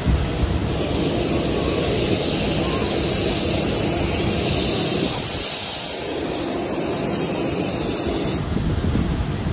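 Steady rushing noise of wind buffeting the microphone over the hum of a jet airliner on the apron, dipping briefly about five seconds in.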